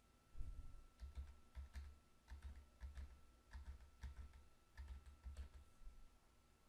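Faint typing on a computer keyboard: a quick, irregular run of key presses as a long card number is entered, stopping about five and a half seconds in.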